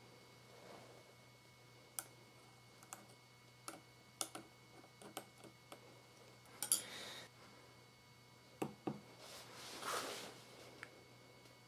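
Faint scattered light clicks and taps as a handheld digital sugar refractometer and small utensils (plastic spoon, glass stirring rod, ceramic cup) are handled to load a sugar solution and take a reading, with two short soft swishing noises in the second half.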